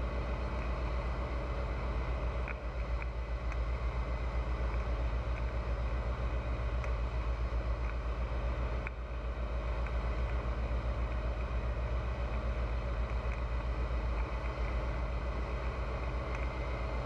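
Pipistrel Virus light aircraft's Rotax 912 flat-four engine and propeller running steadily, with a fast, even throb.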